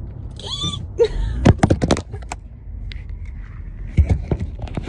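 A phone being handled and knocked about inside a car: a cluster of sharp clicks, knocks and low thumps about a second in, and another near the end. Just before the first cluster there is a short, rising squeak.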